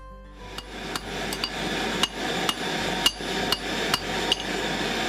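Hand hammer striking hot steel on an anvil, light uneven blows about two a second, each with a short metallic ring, over the steady hiss of a gas torch flame. This is hand-forging a tool blank from old car-spring steel.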